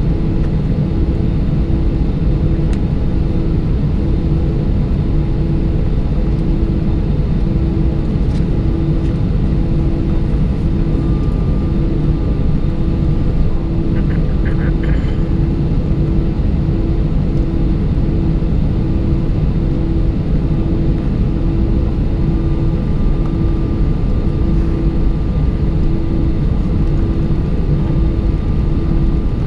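Steady rumble of an Airbus A320's engines and airframe heard from inside the cabin while taxiing, with a hum that pulses about once a second. A few faint clicks come about halfway through.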